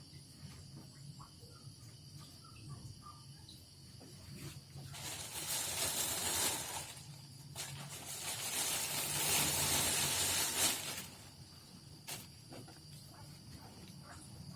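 Two long hissing bursts, each lasting two to three seconds, about five and eight seconds in, over a faint steady hum.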